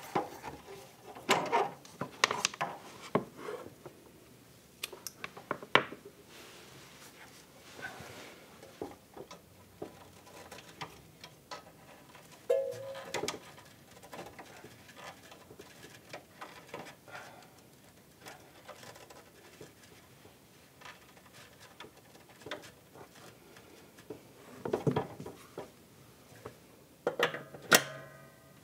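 Irregular knocks, clicks and rubs of hi-fi gear being handled: cables and connectors unplugged and an amplifier shifted by hand. There are short clusters of handling noise, the loudest near the end, with quiet stretches between.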